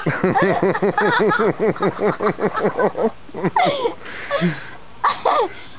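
A person's voice in a fast even run of short pitched syllables, about five a second, breaking off after about three seconds into a few separate falling vocal glides.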